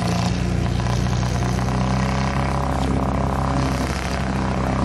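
Off-road 4x4's engine running at steady revs, a low even drone with no change in pitch.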